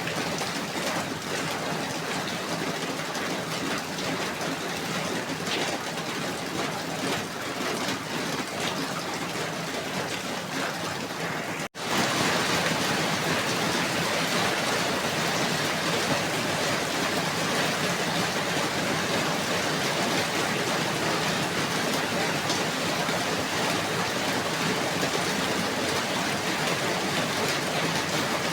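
Steady falling rain, an even hiss. A little before the middle it drops out for an instant, then comes back slightly louder and brighter.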